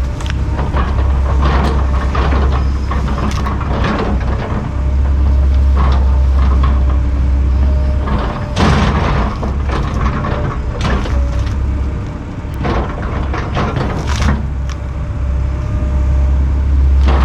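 Large tracked excavator's diesel engine working under load. Repeated sharp cracks and snaps of wood and roots break as brush is ripped out of the ground.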